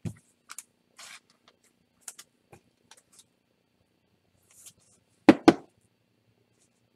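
Light rustling and clicking of plastic card sleeves as a trading card is slipped into a penny sleeve and top loader, with two sharp knocks close together about five seconds in.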